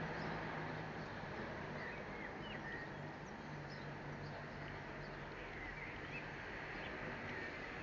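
Outdoor background of steady hiss and a low hum, with faint, scattered bird chirps.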